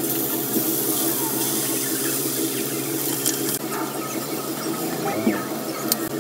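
Tofu pieces sizzling as they fry in hot oil in a frying pan, a steady hiss with a low hum underneath.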